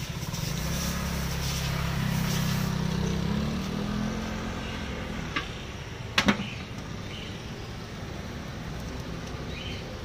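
A motor scooter's small engine runs close by, rising slightly in pitch and then fading away about five seconds in. About six seconds in comes a single sharp metallic clank, a metal lid set on a steel pot, with a short ring.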